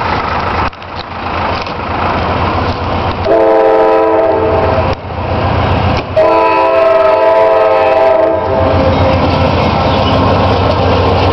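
CSX freight locomotive approaching a grade crossing at speed, sounding its air horn in two blasts, the second longer, over the steady low rumble of the diesel engines and train.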